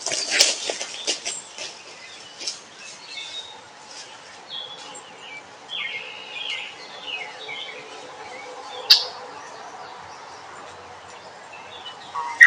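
Wild birds chirping and calling in short notes, with a few clicks in the first second or so and one sharp click about nine seconds in.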